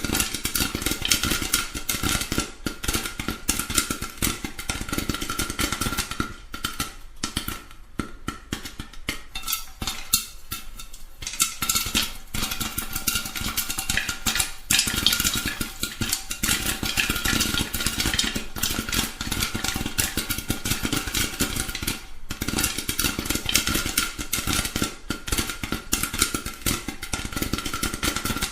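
Popcorn popping: a dense, irregular run of sharp pops, thinning briefly around ten seconds in before picking up again.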